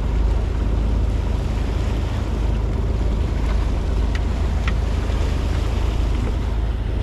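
Fishing boat under way: a steady low rumble of engine and wind on the microphone, with water rushing along the hull. Two short ticks come about four and nearly five seconds in.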